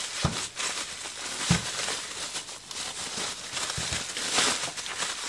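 Plastic bubble wrap crinkling and rustling as it is handled and unwrapped from carburetor kit parts, with a few dull knocks of parts handled on the bench.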